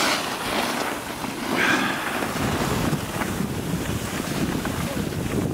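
Wind rushing over the microphone during a fast downhill ski run, with the hiss of edges scraping through groomed snow. The hiss swells at the start and again near two seconds in.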